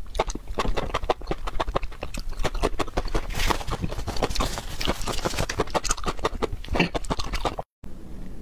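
Close-up mouth sounds of eating: rapid wet slurps and lip smacks, cut off abruptly near the end.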